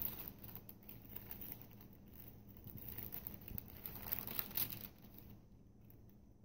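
Paper wrapper of a sterile glove pack being unfolded and flattened by hand: crinkling and rustling of paper, loudest about four seconds in, then dying away about five seconds in.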